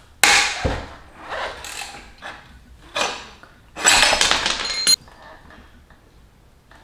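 Metal clanking and scraping of a wrench and the front axle as the front wheel of a motorcycle is loosened and taken off: four separate clatters, the last and loudest lasting about a second with a short metallic ring before it cuts off suddenly.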